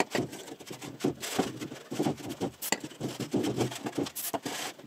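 Irregular hand scrubbing and rubbing on a greasy part, with light clinks and knocks, as it is cleaned with degreaser.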